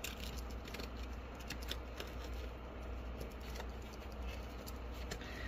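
Handling noise from a tool sheath and a tool being worked into its pocket: faint scattered clicks and rustles over a low steady hum.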